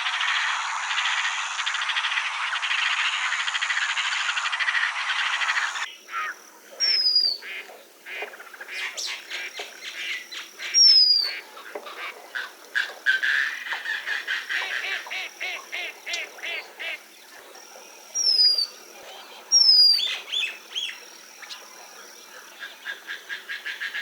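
A dense chorus of croaking frogs runs for about six seconds and stops abruptly at an edit. After that come mixed wetland bird calls: short, sharp falling whistles heard several times, over rapid chattering calls.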